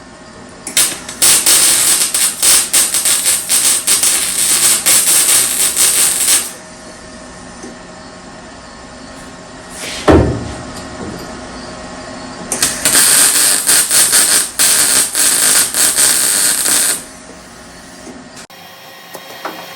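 Welding arc crackling and sputtering in two long runs of several seconds each, as a quarter panel is stitch welded onto a car body. A single sharp knock about halfway through.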